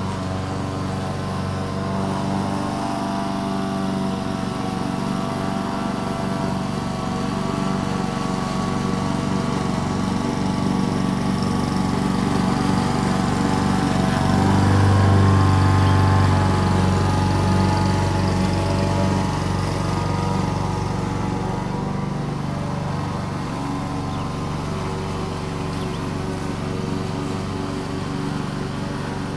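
Lawn mower engine running steadily while cutting grass, getting louder toward the middle as it passes closest and then easing off again.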